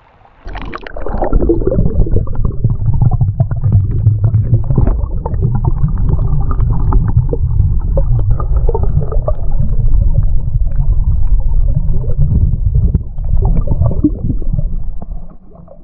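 Shallow stream heard underwater with the microphone submerged: a dense, muffled low rumble with gurgling and crackle. It starts about half a second in and drops away near the end as the microphone comes back out of the water.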